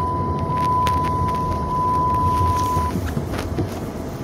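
Steady low rumble of a car's engine and road noise heard from inside the car, with a steady high-pitched tone that cuts off about three seconds in and a few light clicks.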